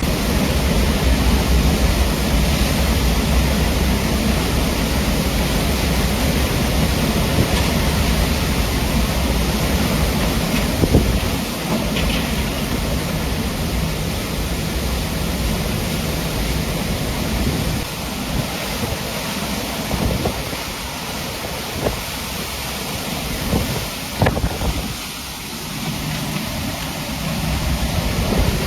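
Hurricane wind and driving rain as a loud, steady rush of noise, with heavy wind buffeting on the microphone for roughly the first ten seconds before it eases a little.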